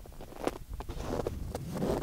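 Wind rumbling on the microphone, with a run of irregular short knocks and rustles starting about half a second in.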